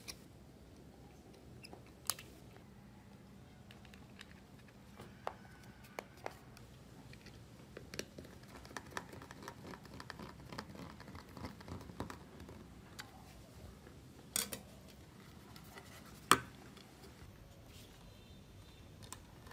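Small handling sounds of a plastic desk telephone being put back together: scattered clicks and knocks of plastic parts, and a screwdriver working a screw into the handset shell. A run of quick small clicks comes in the middle, and a few sharper knocks come later.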